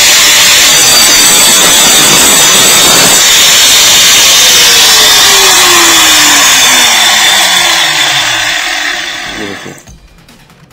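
Angle grinder with a concrete-cutting blade running at full speed with a loud grinding noise as it cuts a piece of tile. About three to four seconds in, it is switched off and the disc winds down with a falling whine, coasting to a stop near the end.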